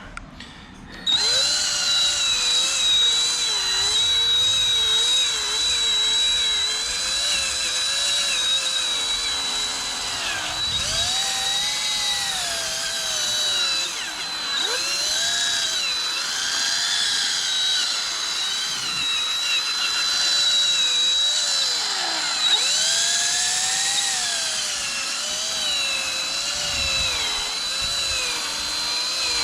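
Cordless drill at low speed spinning a sanding pad with wet 800-grit paper against a foggy plastic headlight lens. It starts about a second in and runs continuously, its whine wavering up and down in pitch as the load on the pad changes.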